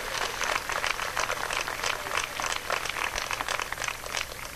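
A large crowd applauding in an open-air stadium: many scattered claps that thin out and fade near the end.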